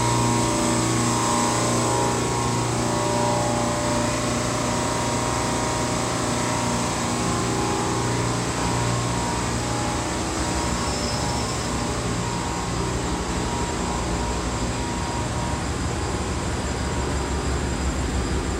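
Container ship engine room machinery running: the slow-speed two-stroke main diesel engine and auxiliary machinery make a loud, steady drone with a constant low hum and a hiss across all pitches.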